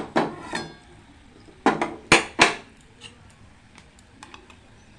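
Kitchen containers knocking and clattering as they are handled and set down: about six sharp knocks in the first two and a half seconds, one of them ringing briefly, then a few faint light clicks.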